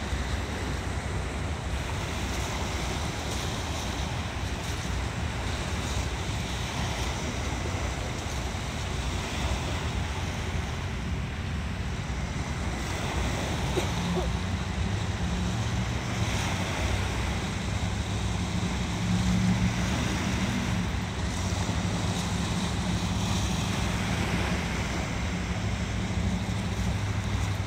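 Small waves breaking and washing over beach rocks, with wind buffeting the microphone. A low steady hum comes in about halfway through.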